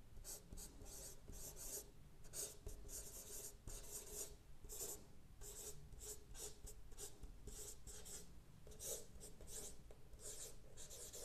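Chalk writing on a chalkboard: a faint, irregular run of many short strokes, several each second.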